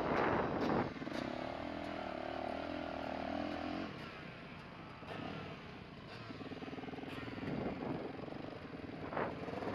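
Dirt bike engine from an on-board camera: a loud burst of throttle at the start, then steady revs for about three seconds, after which the throttle is rolled off and the engine runs lower as the bike slows, with a short rev near the end.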